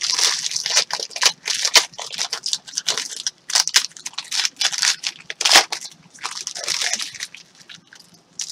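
Trading card packs being torn open, their plastic wrappers crinkling and crackling in quick, irregular bursts. It goes quieter near the end.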